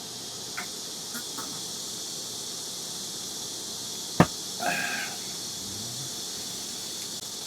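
Steady high chirring of night insects such as crickets and grasshoppers. About four seconds in there is one sharp knock, followed by a brief squeak.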